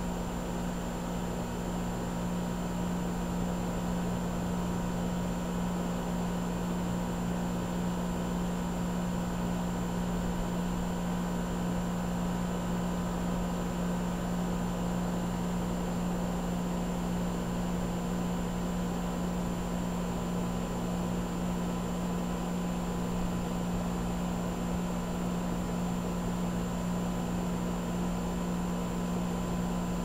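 Outdoor heat pump condensing unit running with a steady low hum from its compressor and fan.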